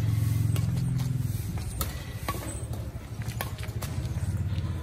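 Badminton rackets striking a shuttlecock in a rally: several sharp clicks about a second apart. Under them runs the low, steady hum of a vehicle engine, loudest at the start and again near the end.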